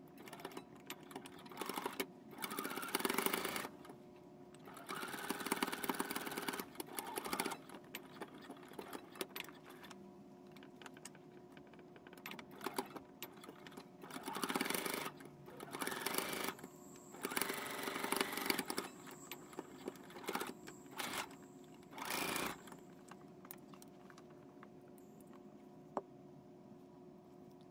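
Singer Quantum Stylist computerized sewing machine stitching in short runs of one to two and a half seconds, about six times with pauses between, as it topstitches along the top edge of fabric.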